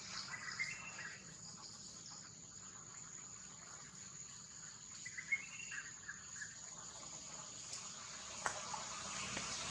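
Insects droning steadily at a high pitch, with faint short chirps twice: once near the start and again about five seconds in.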